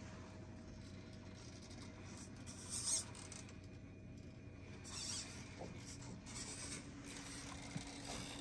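Faint scrabbling and scratching of an Axial SCX10 III RC crawler's tyres on rocks as it climbs, in short scratchy bursts about three and five seconds in and again near the end, over a steady low hum.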